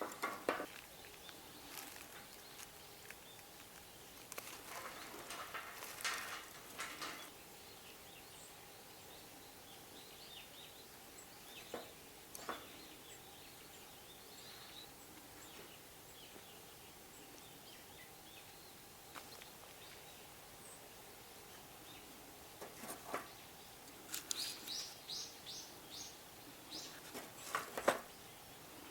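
Faint outdoor ambience with scattered sharp crackles and snaps, typical of a small wood campfire burning. A bird chirps in a quick series near the end.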